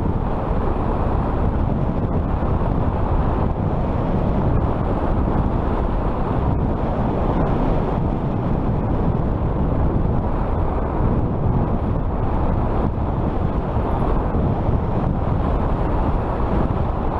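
Steady wind rush and buffeting on the microphone from riding a fat-tire electric bike, a continuous low rumble with no engine note.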